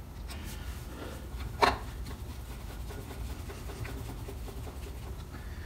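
Hand-work noises on an outboard lower unit's water pump housing: light rubbing and small ticks of metal parts being handled, with one sharp click about a second and a half in, over a steady low hum.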